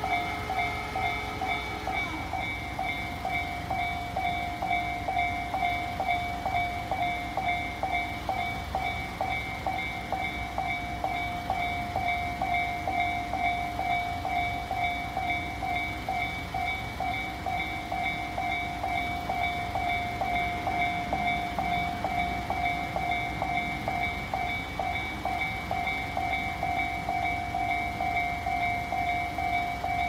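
Japanese level-crossing electronic warning bell ringing in a rapid, even ding-ding rhythm, in the Tobu Tojo Line type of tone, with no change of tone. A second, different tone stops about two seconds in.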